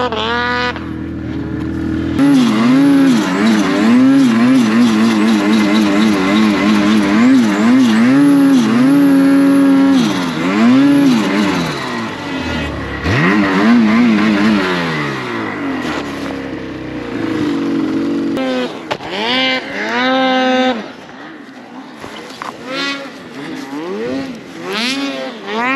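Mountain snowmobile engine revving hard under load in deep snow, its pitch swinging up and down again and again as the throttle is worked. After about eighteen seconds it drops to quieter, shorter bursts of throttle with gaps between.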